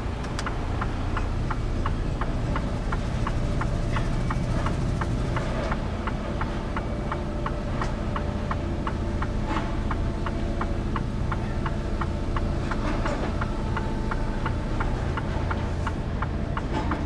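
Cab interior of a Mercedes-Benz Actros truck: the diesel engine runs low and steady while the turn-signal relay ticks evenly, about three ticks a second.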